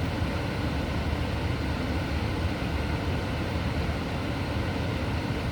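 Steady low drone of running machinery, even and unbroken, with its weight in the low range.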